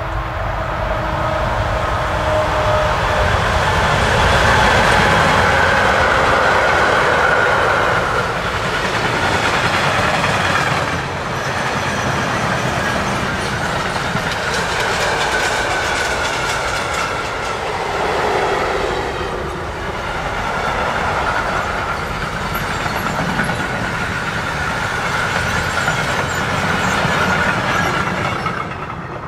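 Electric-hauled freight train passing: the steady rumble and clatter of many wagon wheels on the rails, with a ringing tone above it. It swells as the locomotive goes by a few seconds in, holds through the long string of wagons, and falls away at the very end as the last wagon passes.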